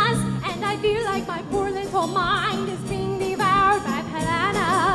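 Music: a female soloist singing with wide vibrato into a microphone over instrumental accompaniment.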